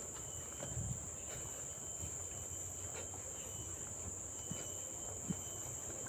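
Steady, high-pitched drone of forest insects, with a few faint footsteps on a gravel path.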